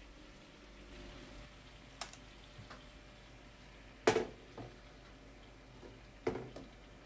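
A few sharp kitchen clacks and knocks of utensils or dishes being handled, the loudest about four seconds in, over a quiet room.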